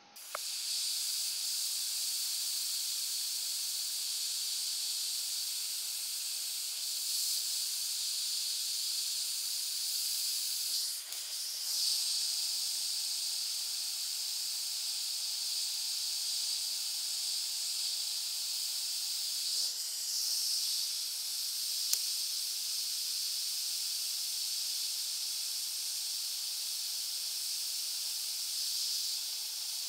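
Hot air rework station blowing a steady high hiss onto a circuit board to melt the solder under a small surface-mount converter chip and lift it off. The hiss shifts briefly a couple of times partway through.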